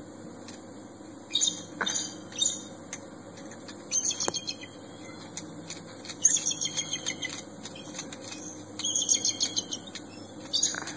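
Small-bird chirps in quick trilled bursts, a cluster every second or two, over a steady high hiss.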